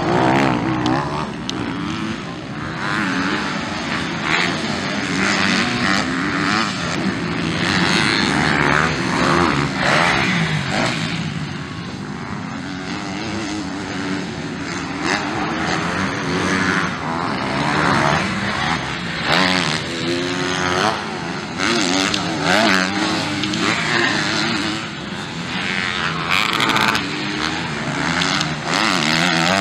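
Dirt bike engines revving hard on a motocross track, the pitch climbing and dropping again and again as riders accelerate, shift and back off.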